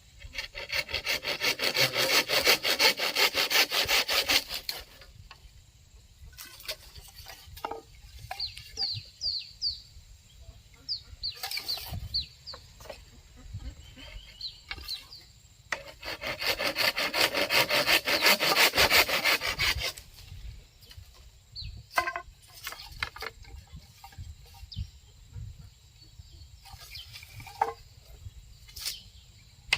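Hand saw cutting wood in two spells of quick, even back-and-forth strokes, each about four seconds long. Scattered knocks and short high chirps fall between the spells.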